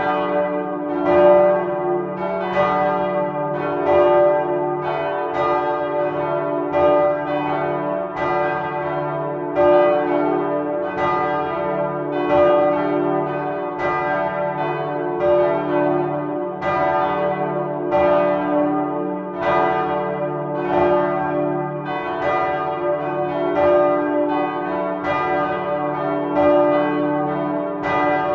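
Bronze church bells cast by Michiels of Tournai in 1957, swinging and ringing together up close in the belfry. Their strokes overlap at about one and a half a second over a continuous hum.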